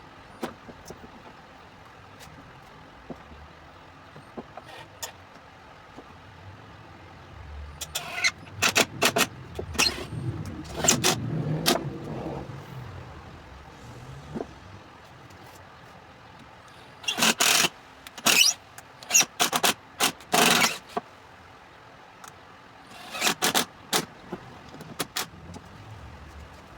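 Workshop handling noises of wood and hand tools: three bursts of sharp clicks, knocks and scrapes, with quiet between them.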